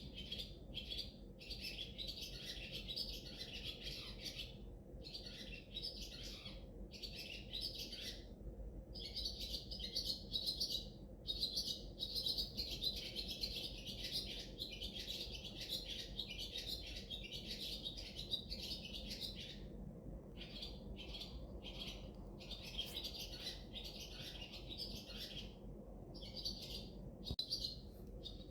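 Many small birds chirping and twittering in a dense, continuous chorus, broken by brief pauses.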